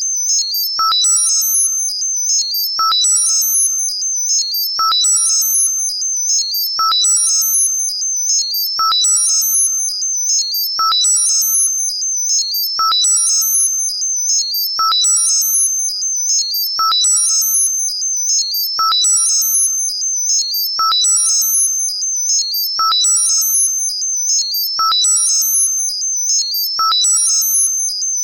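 Synthesized high-pitched tones for tinnitus masking, modulated in a pattern that repeats about every two seconds. Each cycle is a short blip with a ringing mid-pitched tone, then a cluster of high tinkling tones over a steady high whine.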